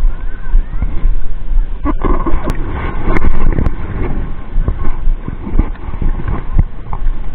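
Wind buffeting the camera's microphone in a constant low rumble, with a few sharp clicks and knocks from a spinning rod and reel being handled. The loudest click comes about two seconds in.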